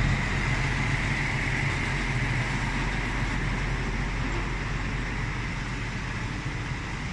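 Heavy diesel truck engine idling steadily, with a steady higher hiss over it, slowly growing fainter.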